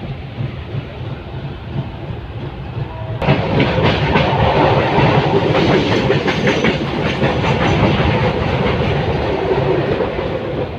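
Moving passenger train: steady running rumble with wheels clattering over rail joints. About three seconds in the sound suddenly gets louder and the clatter becomes sharper and denser.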